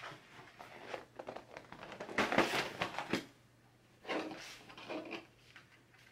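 Large poster boards rustling and scraping against a table while a jigsaw puzzle sandwiched between them is flipped over, with a few light knocks; the handling is loudest about two to three seconds in, then pauses briefly before more rustling.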